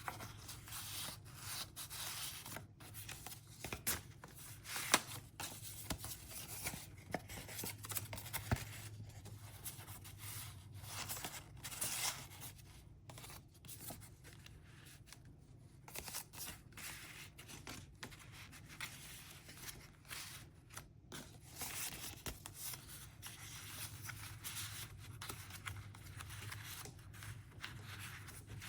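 Cardstock and paper pieces of a handmade folio being handled, with irregular rustling and sliding as cards and envelopes are pulled from and pushed into pockets, and a few sharper taps.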